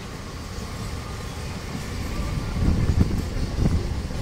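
Mumbai suburban electric multiple-unit train running past on the tracks below: a low rumble that grows louder, with a few heavy knocks from the wheels over the rail joints in the second half.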